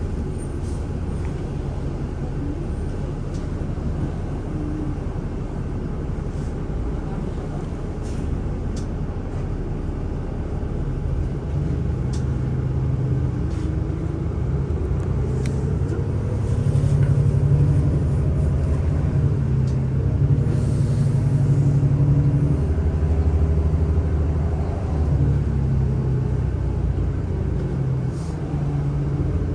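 City transit bus heard from inside, its engine rumbling as it drives. About halfway through the engine note rises as the bus picks up speed.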